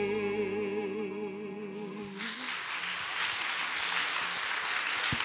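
A singer holds the last note of a song with vibrato over steady accompaniment, and the music stops about two seconds in; the audience then applauds.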